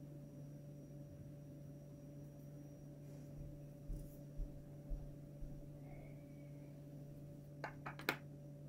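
Small plastic vent-fin pieces being handled and glued: a few soft knocks around the middle and a quick run of three or four small clicks near the end, over a steady low hum.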